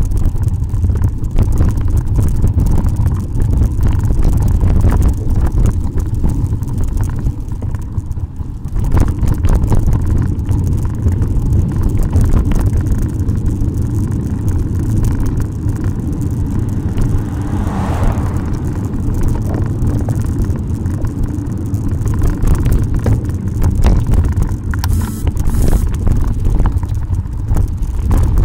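Loud, steady low rumble of wind buffeting the microphone of a camera on a bicycle being ridden, mixed with the rattle of the bike over the trail and road surface. There is a brief louder swell about two-thirds of the way through.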